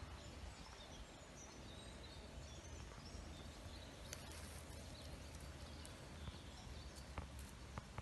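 Quiet outdoor ambience: a steady low rumble with faint, scattered high bird chirps and a few light clicks in the second half.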